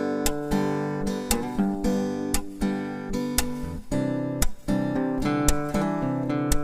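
Acoustic guitar music, chords strummed with regular sharp attacks.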